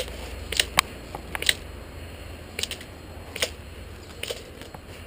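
Scattered sharp clicks and light knocks at uneven intervals, clustered in the first second and a half and then every second or so, from an airsoft player's rifle and gear knocking about and his steps in dry grass as he moves crouched.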